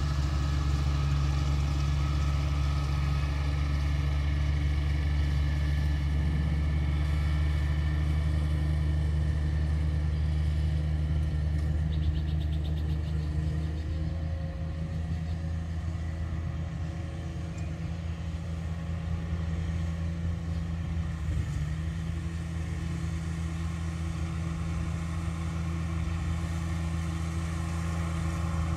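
Riding lawn mower engine running steadily under load while mowing. It fades a little about halfway through as the mower goes over the hill, then grows louder again as it comes back.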